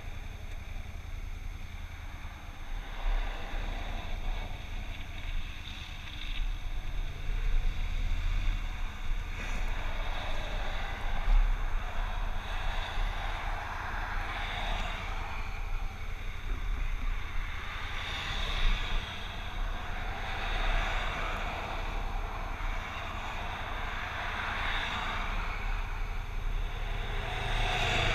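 Motorcycle engine running while riding, its note rising over several seconds early on as it speeds up, with wind rushing over the microphone in gusts that swell and fade.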